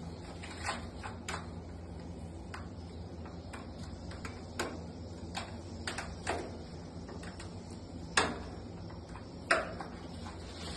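Sharp, irregular clicks and snaps, the two loudest near the end, as swiftlet nests are prised by hand off wooden ceiling planks, over a steady low hum.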